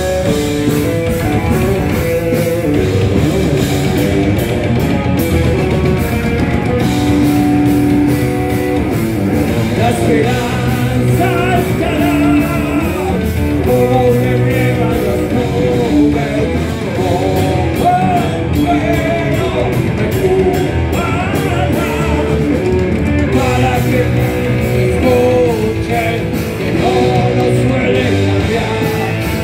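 Heavy metal band playing live: distorted electric guitars and a drum kit, with a singer's voice over them.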